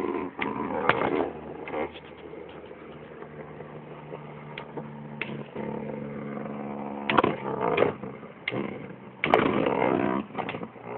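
Two Beyblade spinning tops, Twisted Tempo and Grand Cetus, whirring as they spin in a plastic stadium. Sharp clacks and rattling come as they collide, loudest about a second in, around seven seconds in and around nine seconds in.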